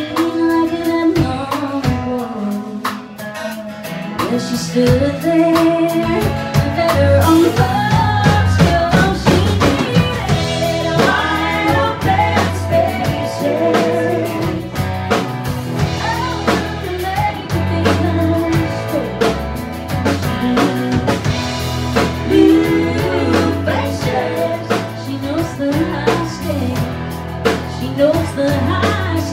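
Live country band: a female lead vocal sung over strummed acoustic guitar, electric bass and drums.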